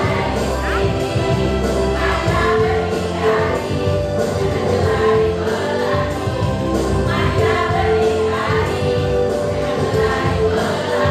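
A group of women singing a jingle together in chorus over music with a steady beat.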